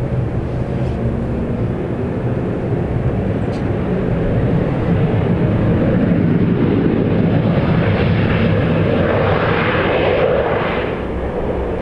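Jet airliner engines running steadily. They grow louder over the middle and peak with a brighter rushing sound a few seconds before the end, then fall off.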